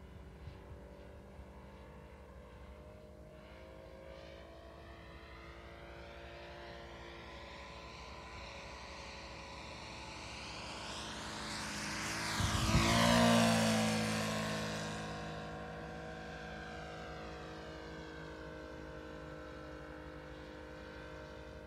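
Saito FG-60R3 three-cylinder four-stroke radial petrol engine of a 1/5 scale RC Focke-Wulf 190 D9 model in a low flyby. The engine note swells to a peak about 13 seconds in, falls in pitch as the plane passes, then fades away.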